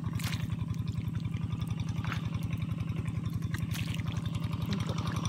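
A small engine running steadily with an even low throb, and a few sharp clicks over it, a third of a second, two seconds and nearly four seconds in.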